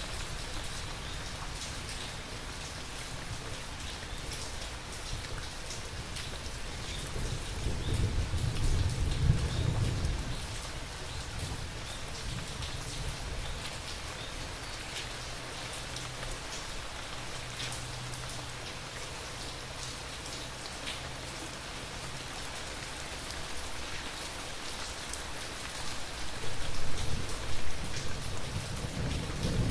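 Thunderstorm: steady rain falling with fine pattering drops. Thunder rumbles low about eight seconds in and again, louder, near the end.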